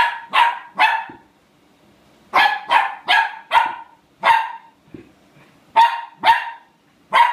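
Puppy barking in short, high-pitched yaps, about eleven in all, coming in quick bunches of two to four with pauses of a second or so between. The puppy is play-barking at a chip on the floor.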